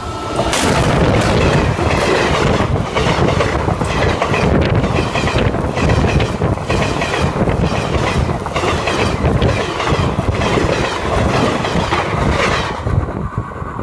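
A train passing right beside the track: loud rumble of wagons with the wheels clattering over the rails in a repeated clickety-clack. The noise dies away near the end.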